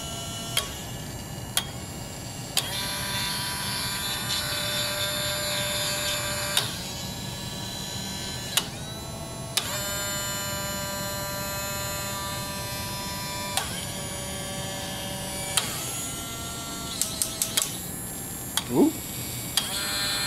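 Small DC gear motors of a Robotic Arm Edge whining as they run in turn, the pitch changing every second or few as the PLC switches from one motor to the next. Relays click at each change, with a quick cluster of clicks near the end.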